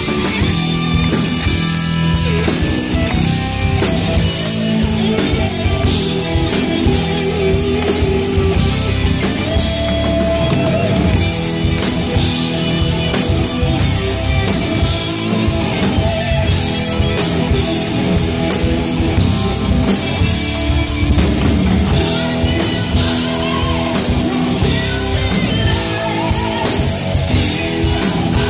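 Live rock band playing loud and steady: electric guitars, bass and drum kit.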